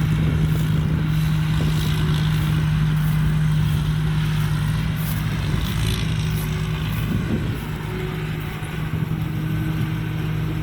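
Rice combine harvester's Hino J08C diesel engine running steadily under load while harvesting a heavy crop, a continuous low engine hum.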